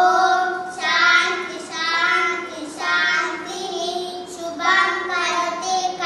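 Two children chanting a shloka (Sanskrit verse) together in a sung, melodic recitation, holding notes in phrases of a second or two with short breaths between.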